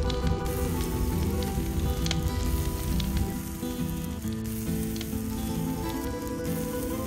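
Beaten egg with enoki mushrooms and spring onions sizzling in hot oil in a small frying pan; the sizzle starts about half a second in.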